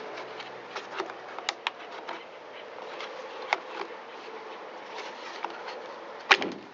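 Scattered light clicks and taps as the blower's plastic handle and housing parts are worked loose, over a steady faint buzzing hiss. One sharper knock comes near the end.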